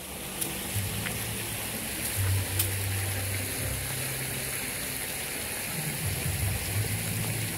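Soft background music with a low bass line of held notes, under a steady even hiss.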